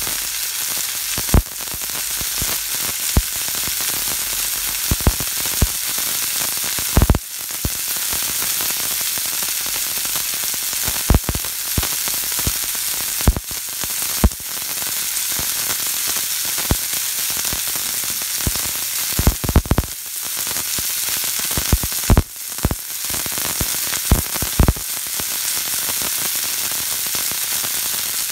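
Hamburger patties sizzling in hot fat in a cast-iron skillet: a steady hiss with frequent irregular pops of spitting grease, a few of them much louder than the rest.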